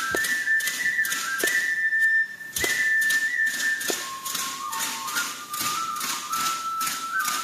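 Music: a high, whistle-like melody stepping from note to note over a fast, steady beat of sharp percussive strikes.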